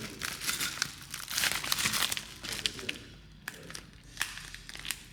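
Packaging wrap being crumpled and torn: a run of crinkling rustles with sharp crackles, busiest for the first two and a half seconds and softer after that.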